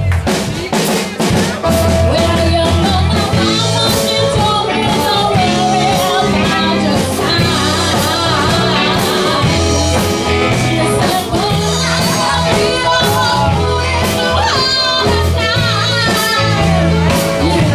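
Live rock band playing through a PA: electric guitars, bass guitar and drum kit keeping a steady beat, with a singer's voice over the top.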